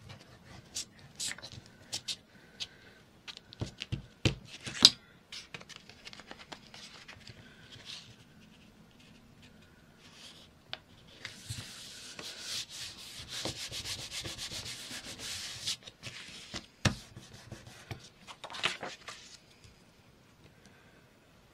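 Paper and cardstock being handled on a cutting mat: light taps and rustles, with one sharper knock about five seconds in. Then a glue stick is rubbed fast across paper for about four seconds, with another knock and a short rub near the end.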